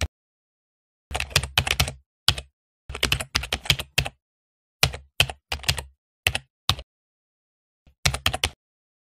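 Keyboard typing: quick runs of key clicks with short pauses between them, matching letters being typed one by one.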